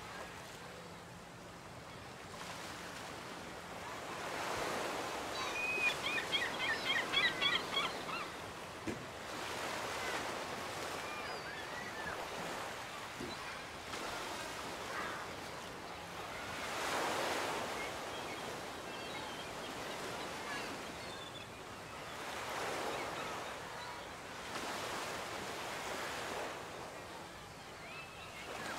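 Ocean surf washing onto a beach, the wash swelling and ebbing every few seconds. About a quarter of the way in, a run of quick high chirps stands out over the surf.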